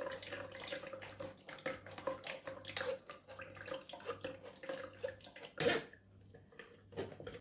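Blended cucumber and apple juice poured through a strainer, trickling and splashing with irregular drips, with a louder splash about two-thirds of the way through.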